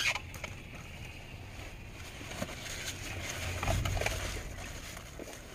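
Steady low rumble inside a vehicle cabin, swelling briefly about four seconds in, with small clicks and rustles of eating fries with a plastic fork over a paper wrapper.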